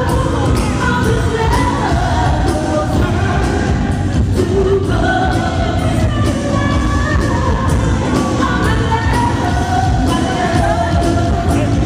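Live freestyle pop music: a woman singing lead over a steady dance beat.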